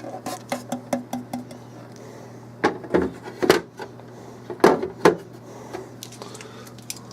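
Things being handled inside a refrigerator: a quick run of light clicks and rattles, then five sharper knocks and clatters a few seconds in, over a steady low hum.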